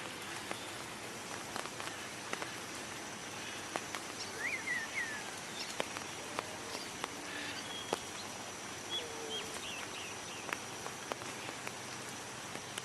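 Natural outdoor ambience: a steady hiss with a faint, continuous high-pitched tone, scattered small clicks and snaps, and a few short bird chirps.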